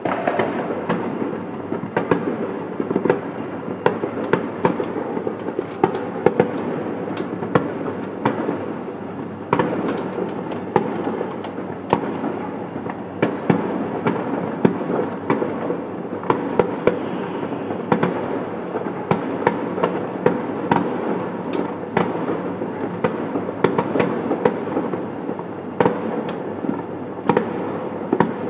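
Fireworks and firecrackers going off continuously over a city neighbourhood: a constant rumble of distant bursts with frequent sharp cracks and bangs, many overlapping.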